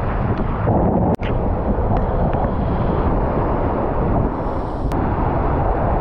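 Ocean surf breaking and washing up the beach, with wind rumbling on the microphone. The sound breaks off for an instant about a second in.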